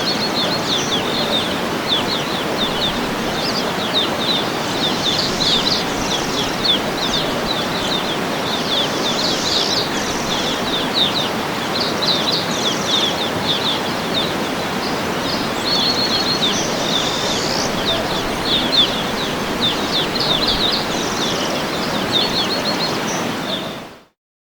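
Steady rush of a waterfall, with many small birds chirping and trilling over it; the sound fades out to silence near the end.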